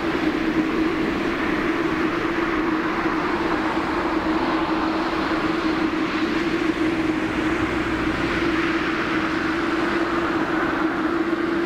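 Jet airliner's engines roaring at takeoff thrust as it climbs away, a steady rushing roar with a constant hum underneath.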